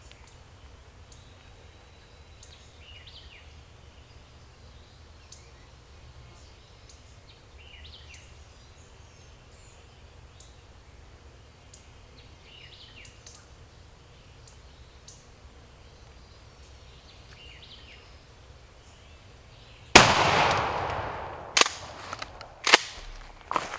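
Faint scattered bird chirps, then about twenty seconds in a single loud shotgun blast, a turkey load fired at a gobbler, ringing out as it fades. Two or three sharp knocks follow over the next few seconds.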